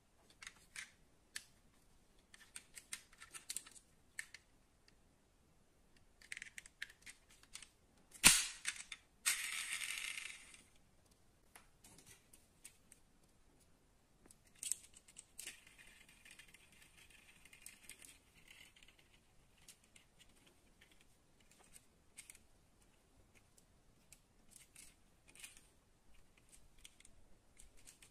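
Light clicks and taps of hands handling die-cast metal toy models, small plastic and metal parts knocking against fingers. About eight seconds in comes one sharp click, followed by a second or so of scraping noise. A fainter scraping stretch follows later.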